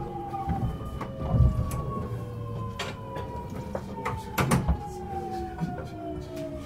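Mitsubishi GTO-VVVF inverter on a 70-000 series electric train whining with several tones that fall slowly in pitch as the train slows, over steady running rumble. Sharp clunks from the wheels over rail joints and points come a few times, loudest about a second and a half in and near the middle.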